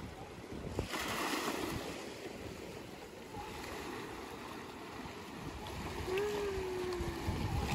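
Waves lapping at the water's edge: a steady wash of outdoor water noise.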